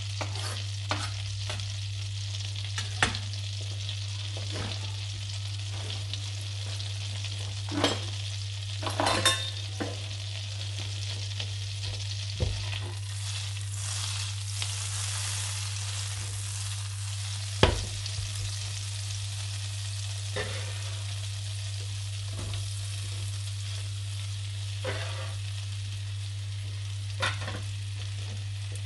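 Butter and a little oil sizzling in a nonstick frying pan, with a steady low hum under it and scattered clicks and knocks as the pan is tilted and moved on the ceramic hob. Near the end, diced red onion is scraped into the pan.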